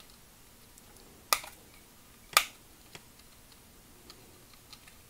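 Plastic parts of a Generation Toy GT-2 Tyrant transforming figure clicking as its leg panels are pushed into place: two sharp clicks about a second apart, then a few faint ticks.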